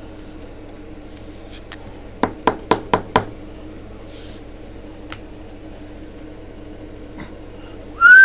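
Five quick, sharp knocks in a row, about five a second, over a steady low hum, with a few faint clicks around them. Near the end a loud sound begins that slides down in pitch.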